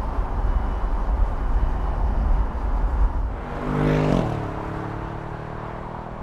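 Low rumble of road and wind noise, then about three and a half seconds in an Audi S7 Sportback's twin-turbo V8 sweeps past, its engine note dropping in pitch as it goes by and then fading away.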